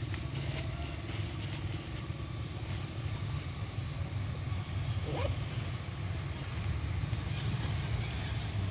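Steady low outdoor rumble with a brief rising call about five seconds in.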